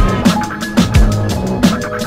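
Electronic drum and bass music: a fast beat of deep kick drums that drop in pitch, with busy high percussion over it.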